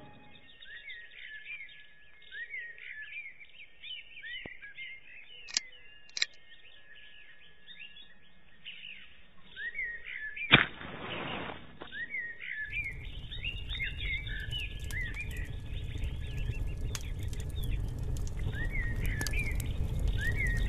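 Small birds chirping, many short sliding chirps repeated through the whole stretch. A sharp knock about ten and a half seconds in is followed by about a second of noise. After that a low rumble sets in and grows.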